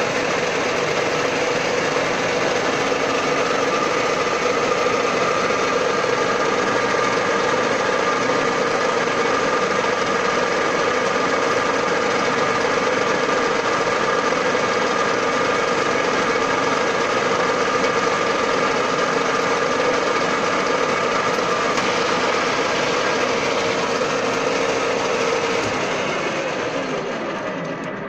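A 16K20 screw-cutting lathe running steadily, its geared headstock and spinning chuck giving a loud, even whine. Near the end the drive is switched off and the whine falls in pitch as the spindle slows down.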